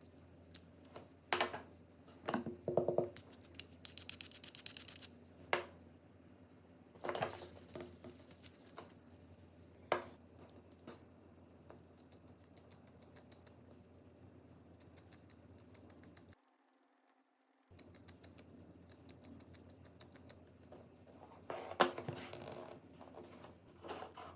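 Irregular small clicks, taps and brief scrapes of hand tools and small phone parts being handled on a work surface, over a low steady hum. The sound cuts out completely for about a second about two-thirds of the way through.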